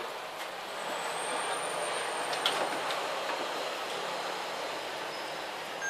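Steady rushing background noise with no calls or voices. A faint, thin, high whistle starts about a second in and lasts about two seconds, and there is one sharp click.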